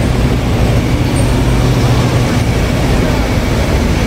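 City street traffic noise, with a large vehicle's engine running close by as a steady low hum that fades away a little over two seconds in.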